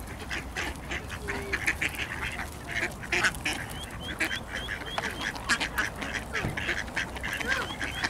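A flock of mallards quacking, many birds calling over one another in short, irregular quacks.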